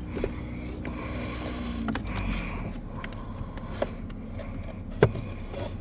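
Plastic dash trim and the cabin air filter cover behind a car's glove box being handled: scraping and small clicks, with one sharp click about five seconds in. A low steady hum runs underneath.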